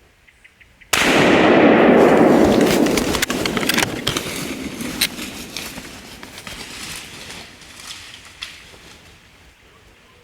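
A single rifle shot about a second in, its report rolling and echoing away over several seconds. A few faint sharp clicks follow as it dies down.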